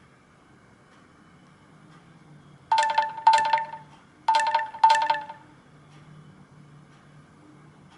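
Nokia Asha 302 stock tone: four bell-like chime strikes at about the same pitch, in two quick pairs about a second and a half apart.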